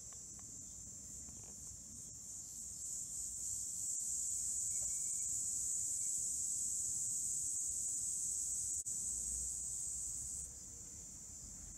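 A steady high-pitched hiss, louder from about three seconds in until near the end, over a faint low rumble.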